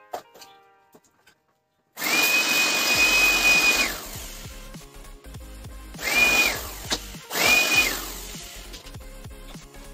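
An electric motor appliance switched on for about two seconds, then twice more in short bursts, each time winding up to a steady high whine and winding down as it is switched off.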